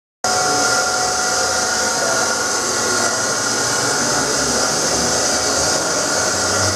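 Brewery machinery running: a loud, steady whir with several steady whining tones over it, cutting in abruptly about a quarter second in.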